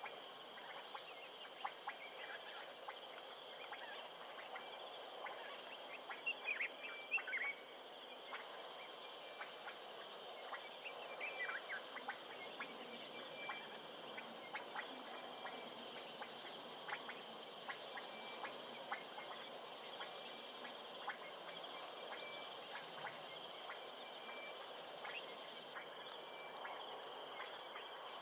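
Chorus of frogs and insects at a waterhole: a steady high pulsing trill over a hiss of background noise, with scattered short chirps and clicks, a few louder ones about six to seven seconds in.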